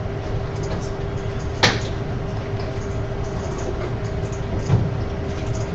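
Steady low hum and rumble of background machinery, with a sharp click about a second and a half in and a duller thump near the end.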